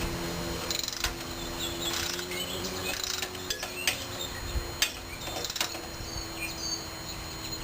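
Scattered sharp metallic clicks and knocks of hand tools at work on a riding mower's parts, a few per second at most and irregular, over a faint low hum that fades out about halfway through.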